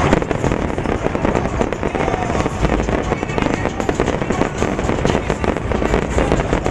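Dense fireworks barrage: many overlapping bangs and crackling bursts in quick, irregular succession.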